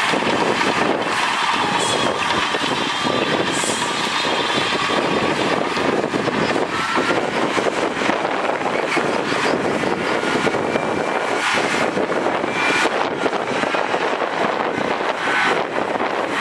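Heavy diesel earthmoving machinery running steadily under load, with a few brief high-pitched squeaks and clanks over the engine noise.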